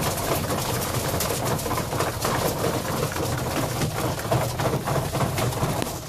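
A flock of young Budapest highflyer pigeons pecking grain from wooden trough feeders, a dense irregular clatter of many small pecks.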